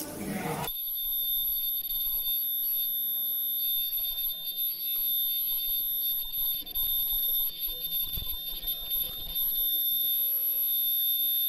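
Disposable mask production machine running, giving a steady high-pitched whine over faint mechanical running noise. The whine sets in under a second in.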